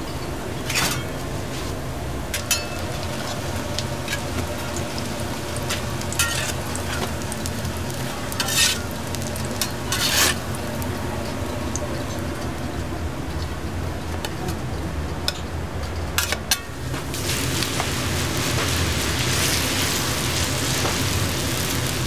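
Potato pancakes frying on a steel flat-top griddle, with a metal spatula scraping and knocking sharply on the plate a few times. Over the last few seconds the sizzle grows louder as fresh potato batter is spread on the hot griddle. A steady low hum runs underneath.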